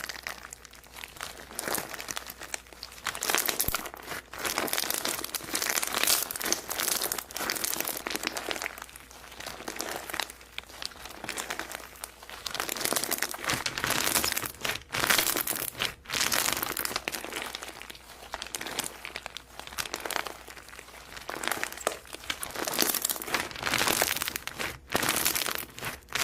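Slime being squished and pressed by hand, giving crackling, crinkling sounds in irregular bursts every second or two.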